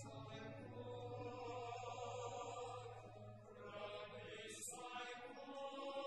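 Sacred chant sung slowly by voices holding long notes.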